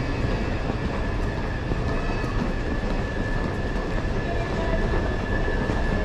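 Steady rumbling ambient noise of an airport terminal corridor, with a faint steady high-pitched whine running through it.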